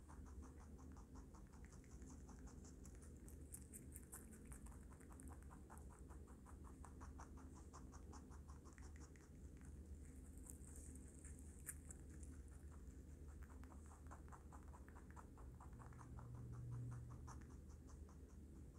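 Baby rabbit chewing lettuce and carrot, a fast, even run of faint clicks from its teeth, heard close to the microphone.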